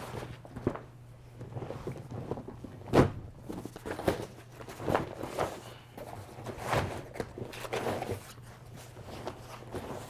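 Irregular handling and packing noises from the folding canoe's parts: rustling and scattered knocks, with one sharp thump about three seconds in, over a steady low hum.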